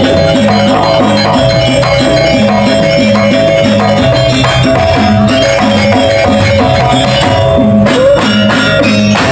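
Balinese janger dance music with drums and percussion keeping a steady, even beat under sustained tones.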